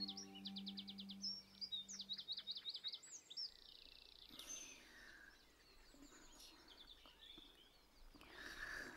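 Birds chirping and trilling in quick runs through the first few seconds, then fainter scattered calls. A held music note trails off at the start, and a louder swelling sound comes in near the end.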